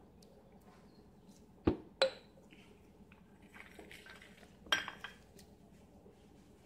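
Drinking glasses and small saucers clinking as they are set down and moved on a granite countertop: two sharp clinks about two seconds in, and a third with a brief ring near five seconds.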